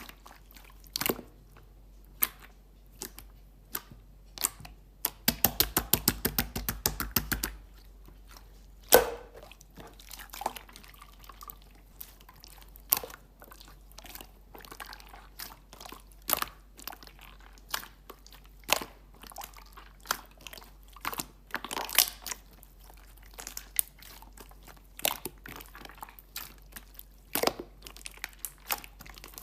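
Clear slime being squeezed and poked by hand, giving scattered sharp sticky clicks and pops, with a fast run of clicks about five seconds in that lasts a couple of seconds.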